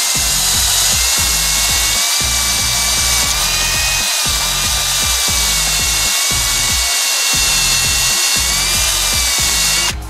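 Milwaukee cordless drill spinning a wire wheel brush against a battery cable's ring terminal. It gives a steady motor whine over the hiss of wire bristles scrubbing metal, scouring corrosion off the connection down to clean copper.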